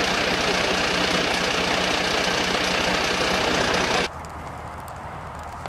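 Fire engine's diesel engine idling close by, a loud steady clatter. About four seconds in it cuts off suddenly, leaving a quieter low hum with faint scattered crackles.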